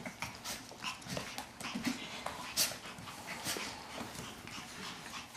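Shih Tzu puppies scuffling in play on a hardwood floor: many quick irregular clicks and scrapes of claws and paws, with puppy whimpers.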